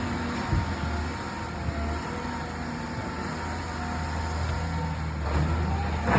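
Excavator's diesel engine running steadily, with a sharp knock near the end.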